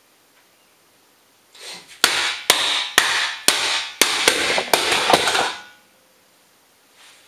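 A hammer repeatedly striking the plastic case of a small 100 Mbit network switch, about eight sharp blows at roughly two a second. Each blow is followed by a brief rattle, and the switch holds up without breaking apart.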